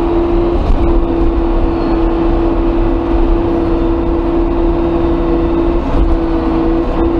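Chinese front loader's diesel engine working, heard from inside the cab: a low rumble under a steady whine that dips briefly twice near the end.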